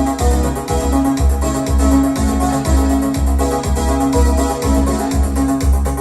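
Music played back through a Yamaha A-S301 stereo amplifier: keyboard and organ-like sounds over a heavy bass beat about twice a second.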